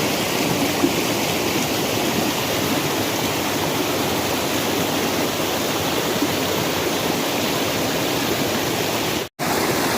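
Waterfall water rushing steadily, an even hiss and rumble. It cuts out sharply for a split second near the end.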